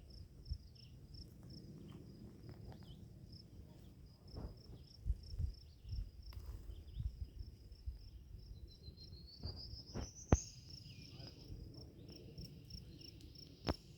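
Insects trilling: a steady, fast-pulsing high-pitched trill that rises in pitch and drops back about ten seconds in. Under it runs a low outdoor rumble with a couple of sharp knocks.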